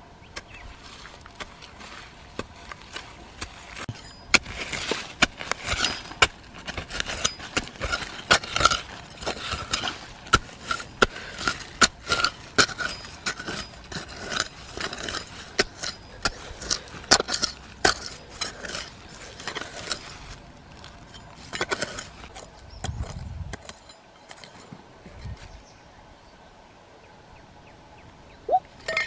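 Digging into dry, stony soil with a metal knife blade and bare hands: a fast, irregular run of scrapes, knocks and crumbling earth, thinning out after about twenty seconds.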